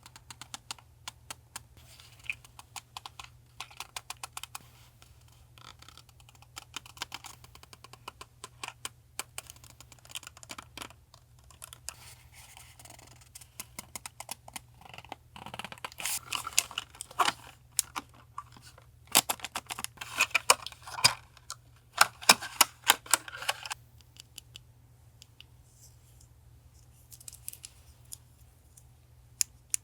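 Hands handling packaging and small purchased items on a desk: a run of crinkles and clicks, busiest about halfway through, then sparse. Under it runs a steady low hum from a nearby refrigerator.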